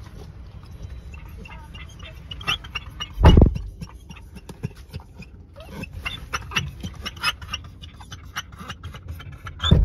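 Pit bull panting, quick small breaths over a steady low rumble, with a loud low thump about three seconds in and another near the end.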